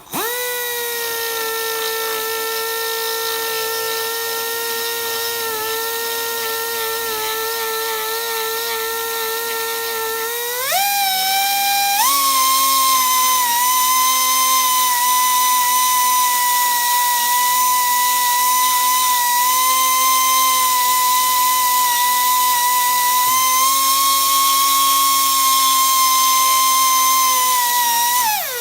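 High-speed rotary tool with a carbide bit grinding out a hairline crack in a steel tool part to prepare it for brazing. It gives a steady high-pitched whine that rises sharply in pitch about ten seconds in and holds at the higher pitch.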